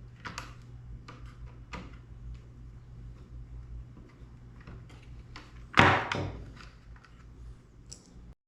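Hands working on a drone on a workbench: light clicks and taps of parts being handled, then a louder clunk about six seconds in, over a faint steady hum.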